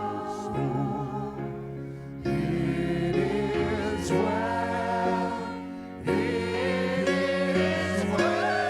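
Christian worship song: several voices singing over sustained chords, swelling louder about two seconds in and again about six seconds in.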